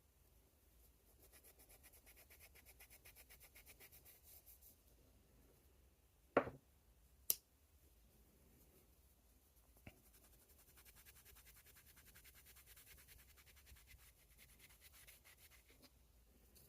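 Faint, fast back-and-forth rubbing strokes on a small pocket knife being cleaned up, in two spells, with two sharp knocks about halfway through.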